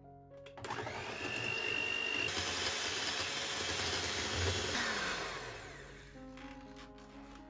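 Electric hand mixer running, its beaters whipping cream, starting about half a second in with a rising whine and dying away after about five seconds.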